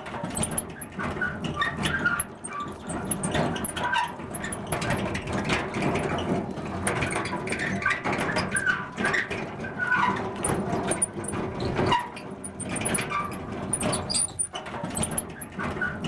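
Metal cart rolling, its wheels squeaking and creaking in short irregular squeals over a continuous rolling rattle.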